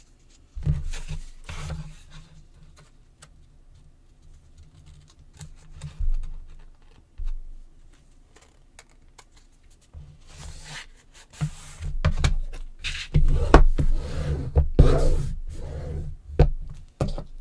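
Handling noise from hands working a chipboard panel and paper on a tabletop: scattered light taps and a few knocks, then a busier run of knocks, rubbing and scraping over the last several seconds, the loudest part, as paper is pressed and smoothed down.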